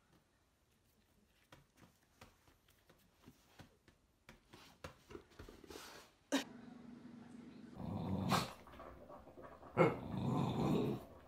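A dog growling in low, rough bouts through the second half, the loudest about eight and ten seconds in, after several seconds of near silence with faint ticks.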